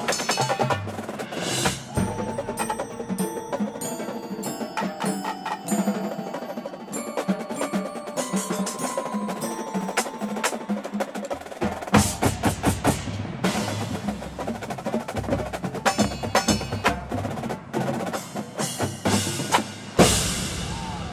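Drum corps percussion section playing: rapid snare and tenor drum patterns over marimbas and other keyboard mallet percussion. The low drums drop out for a stretch, then come back in with a loud accented hit about halfway through, with another near the end.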